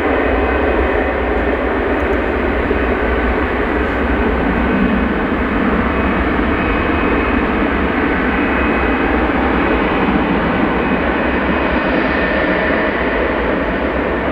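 Jet airliner engines running, a loud steady noise with faint thin tones high in the sound and no sudden events.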